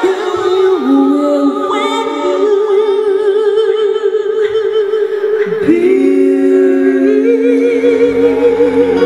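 Female vocalists singing long held notes with vibrato in harmony over light keyboard accompaniment, the voices far out in front; low bass notes come in near the end.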